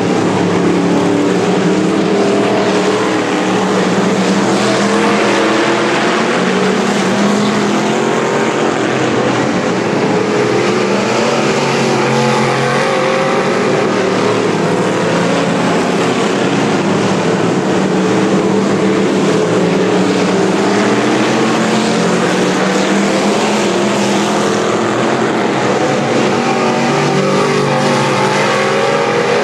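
Several Modified Hobby Stock race cars running on a dirt oval, their engines overlapping in a loud, steady drone whose pitch wavers up and down as the cars go around and past.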